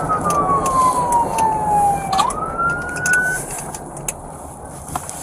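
Police car siren on wail: one slow falling sweep, then a quick rise back up, cutting off about three and a half seconds in. Vehicle engine and road noise run underneath.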